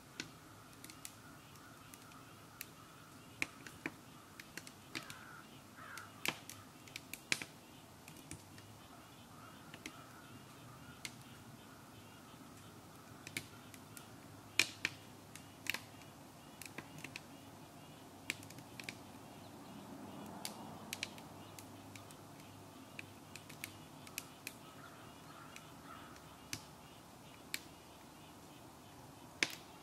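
Wood fire crackling in a sap-boiling stove: irregular sharp pops and snaps, often a second or more apart and sometimes in quick clusters, over a faint steady background.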